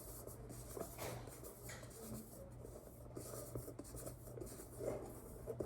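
Hands kneading and squishing soft cornstarch cloud dough that is still a little sticky: faint rubbing and small ticks, over a steady low hum.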